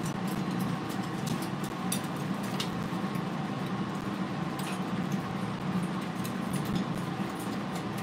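Scattered light clicks and taps of a parrot's claws and beak on metal cage bars as it climbs along the top of the cage, over a steady background hum.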